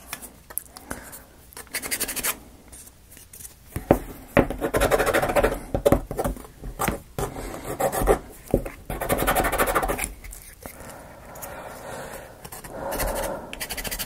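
Laser-cut plywood model pieces rubbing and scraping against each other as they are worked together, in several stretches of a second or two, with scattered light clicks and knocks.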